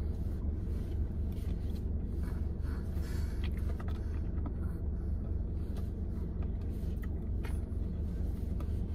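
Car engine idling, a steady low rumble heard inside the cabin.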